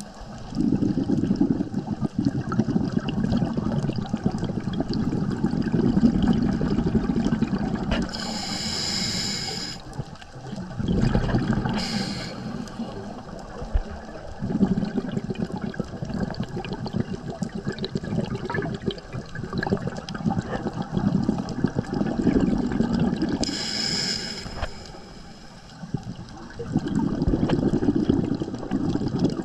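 Scuba diver breathing through a regulator underwater: long bubbling exhalations lasting several seconds, broken by short hissing inhalations a few times.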